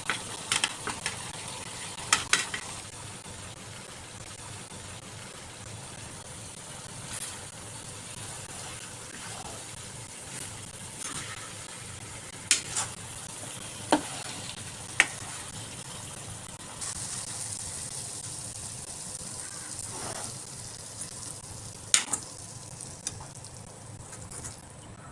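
Food sizzling as it fries in a pan, a steady hiss, with a utensil clinking against the pan several times as it is stirred.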